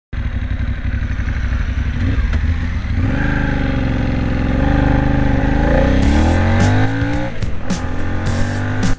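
Moto Morini Corsaro 1200's V-twin engine under way on the road, heard from the bike itself. The engine note climbs as the bike accelerates through the middle and drops back about three quarters of the way through, with wind buffeting the microphone near the end.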